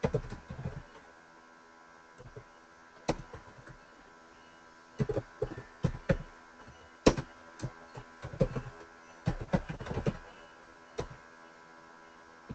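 Computer keyboard being typed on: irregular clicks of keystrokes, singly and in short quick runs, with pauses between, over a faint steady hum.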